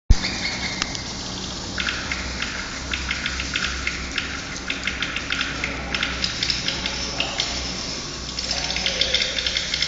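Swiftlet calls played through a swiftlet-house sound system: dense, rapid chirping and clicking twitters in runs of a second or two, over a steady low hum.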